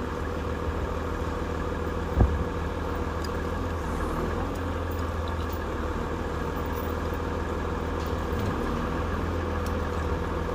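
Heavy vehicle engine running steadily at a constant speed, with one short thump about two seconds in.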